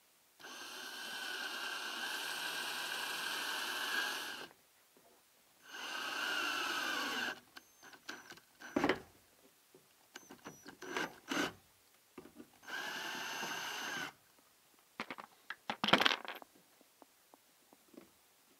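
Cordless drill boring a hole through the van's sheet-metal body for the camera wire. It runs with a steady whine for about four seconds, then in two shorter runs, with light clicks and knocks of handling in between.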